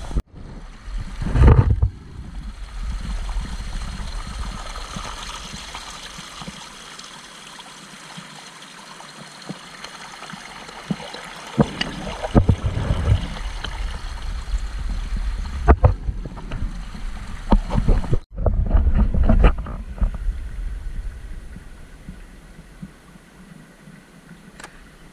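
A small mountain stream splashing and gurgling over rocks into a shallow pool, close up. Heavier low rumbling rises and falls a few times, and the sound breaks off abruptly now and then.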